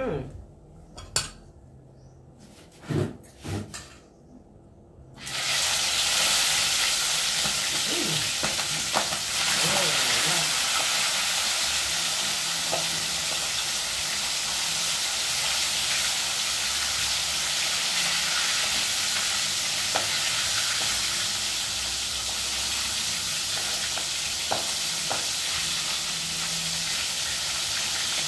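A few knife chops on a wooden cutting board, then about five seconds in food goes into hot oil in a wok and a loud, steady frying sizzle starts and keeps going, with a few faint scrapes of a spatula stirring.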